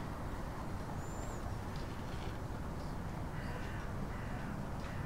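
Steady low background rumble of room or street ambience, with a brief faint high chirp about a second in.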